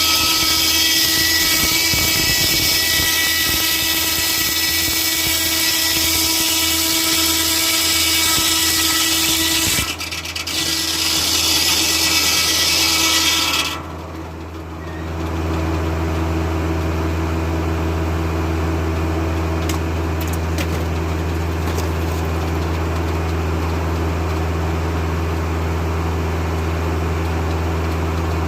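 Foley-Belsaw circular sawmill blade cutting through an oak log: a loud, steady rasp with several ringing tones, over the steady hum of the Kubota tractor engine that drives the mill. The cut ends suddenly about fourteen seconds in, leaving the tractor engine running.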